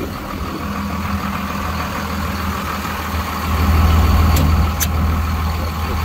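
A large vehicle engine idling steadily, growing louder about halfway through, with two faint clicks shortly after.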